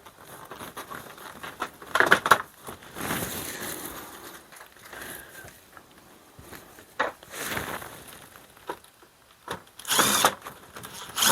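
Power drill fitted with a Phillips bit driving screws in short bursts to fasten down a rooftop RV air-conditioner unit. The loudest run comes near the end.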